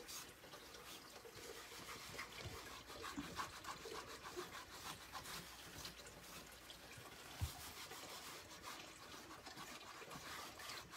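Faint rustling and scrubbing of a cloth being handled and wiped across a chalkboard, with a single light knock about seven and a half seconds in.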